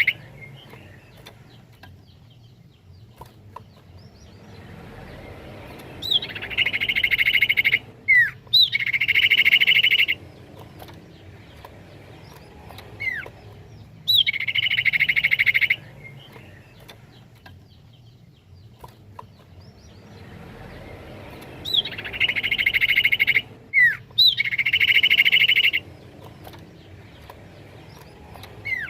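Common iora (cipoh) song: a short sharp upward whistle followed by a rapid rolling trill held for about two seconds. The phrase repeats five times, mostly in pairs a second apart, with quieter gaps of several seconds between.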